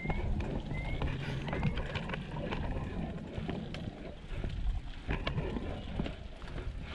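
Road bike being ridden up a narrow village lane: low rumble of wind and rolling noise on the camera microphone, with scattered clicks. In the first couple of seconds there is also a short rising chirp about once a second.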